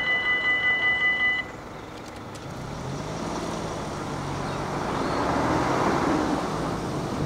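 Dutch level-crossing warning bell ringing at about three strokes a second, stopping about a second and a half in as the barriers finish rising and the crossing reopens. Then cars pull away and drive across the crossing, growing louder toward the end.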